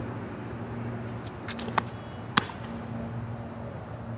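Steady low background hum, with two sharp clicks about half a second apart near the middle.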